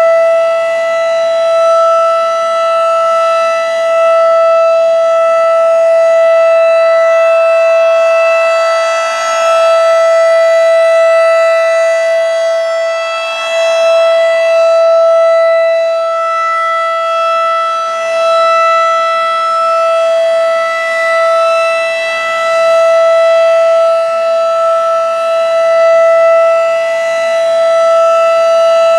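Federal Signal 2001 rotating electromechanical siren sounding its steady Alert tone for the monthly siren test: one loud, unwavering pitch that swells and fades a little in loudness as the rotating head turns.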